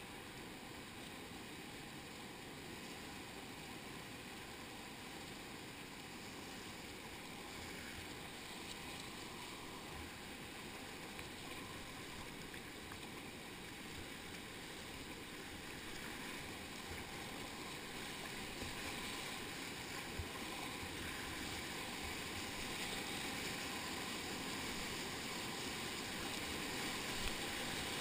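Rushing whitewater of a river rapid heard from a kayak in the current: a steady rush of water that grows gradually louder over the second half as the boat runs into a large breaking wave, with a few faint knocks.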